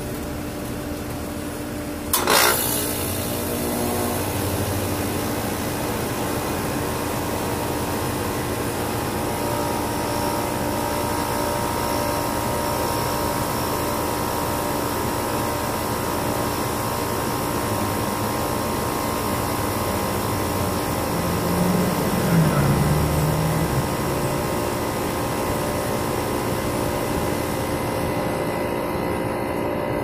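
Outdoor condensing unit of a 2004 American Standard Allegiance 12 central air conditioner starting up: a sharp click about two seconds in, then the unit runs with a steady hum.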